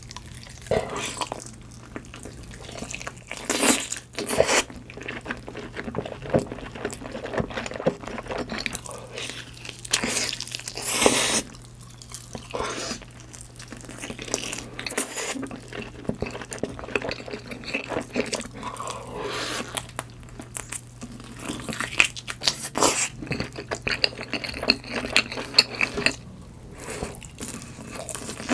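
Close-miked eating sounds: a person takes big bites of sauce-coated roast chicken and chews it, with crunching, sticky wet mouth sounds and a few louder bites. Near the end a small fried ball is chewed.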